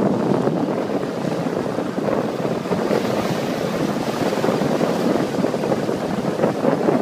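Steady rushing of wind and water from a boat moving across choppy water, with wind buffeting the microphone.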